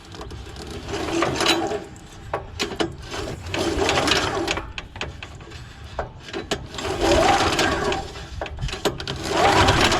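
Recoil starter of a Honda GX340 single-cylinder engine pulled about four times, each pull a short burst of the engine cranking over without starting; one pull almost catches.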